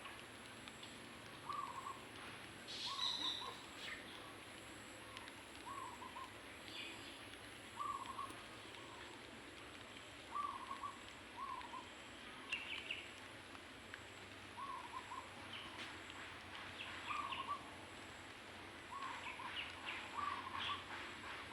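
Chickens calling: short low calls repeated every second or two, with a few higher chirps mixed in.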